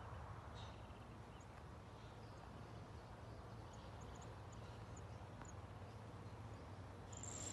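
Faint outdoor ambience: a low steady rumble with scattered short, high chirps, and a brief rustling burst right at the end.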